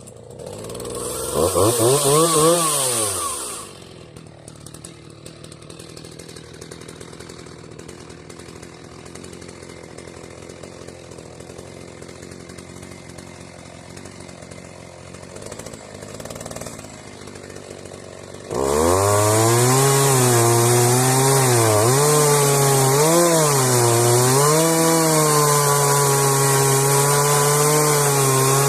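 Chainsaw on a homemade Alaska-style mill. It revs up and drops back in the first few seconds, idles for about fifteen seconds, then goes to full throttle about two-thirds of the way through, its pitch dipping and recovering as it saws through the log lengthwise into boards.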